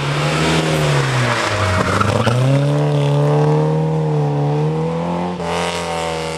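Opel Kadett GT/E rally car's four-cylinder engine passing at speed: the revs fall for about two seconds as the driver comes off the throttle for the bend, then climb sharply and hold high under hard acceleration as the car pulls away.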